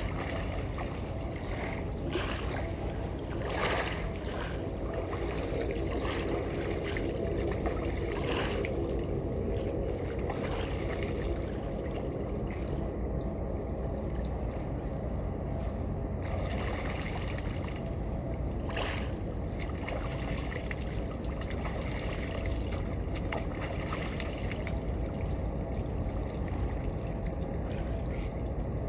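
Steady low rumble of a boat under way on the sea, with water splashing and rushing along the hull now and then.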